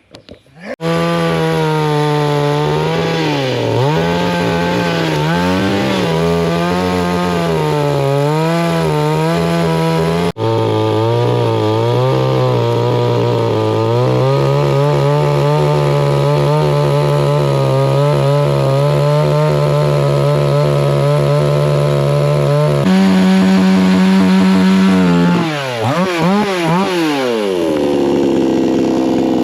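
Chainsaw running hard while cutting wood, its engine pitch wavering up and down as the chain bites. Near the end it holds a high whine for a couple of seconds, then the revs drop sharply and it settles at a lower, steady speed.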